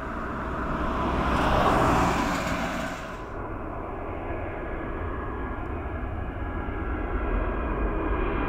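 Boeing 787-8's Rolls-Royce Trent 1000 turbofans at takeoff thrust: a rushing roar that swells to its loudest about two seconds in. The high hiss cuts off suddenly about three seconds in, leaving a steady roar with a faint whine that slowly grows louder.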